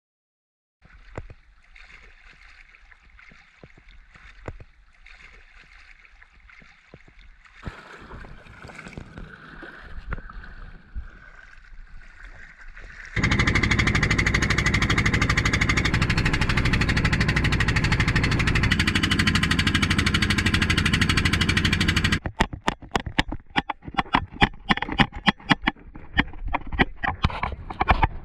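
Small wooden boat underway: its engine running under loud, steady rushing noise of wind and water, for about nine seconds in the middle. Before that there is a quieter, softer ambience with scattered clicks, and near the end the noise breaks into short irregular bursts.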